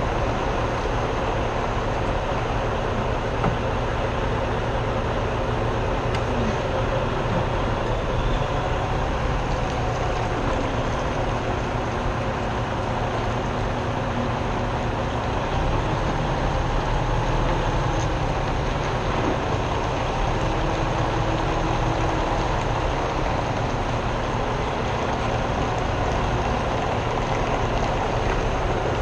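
Semi tractor's diesel engine running as the truck moves slowly, heard through a camera mounted outside the cab: a steady, even noise with no clear changes.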